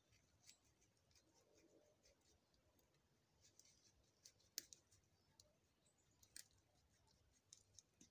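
Near silence broken by faint, scattered sharp clicks and light rustling from hands handling a bundle on the ground; the loudest click comes about halfway through.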